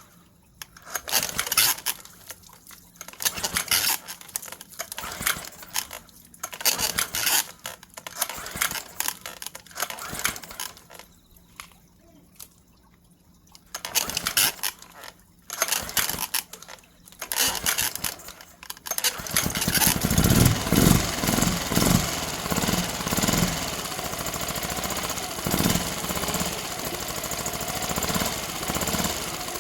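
Irregular clicks and clunks of handling, then about two-thirds of the way in a Tohatsu MFS6DS four-stroke 6 hp outboard motor starts and runs steadily at idle.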